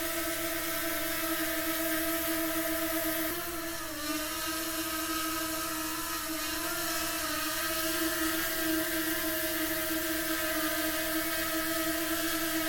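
DJI Mavic Mini 2 quadcopter's propellers whining steadily in flight, several tones at once. The pitch and loudness dip briefly about three and a half seconds in, then the pitch wavers slightly a few seconds later as the motors adjust.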